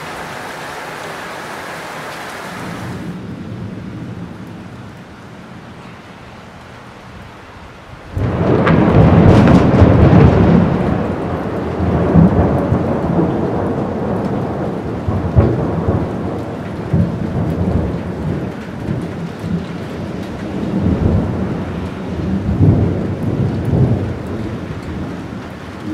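Rain falling steadily. About eight seconds in, a sudden loud crack of thunder breaks into a long roll that rumbles and crackles on, swelling again several times.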